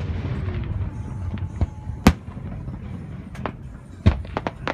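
Aerial fireworks shells bursting. One sharp bang comes about two seconds in, and a quick run of smaller cracks comes near the end, over a continuous low rumble.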